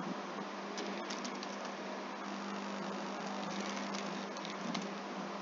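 Computer keyboard typing: a few scattered, faint key clicks over a steady background hiss and low hum.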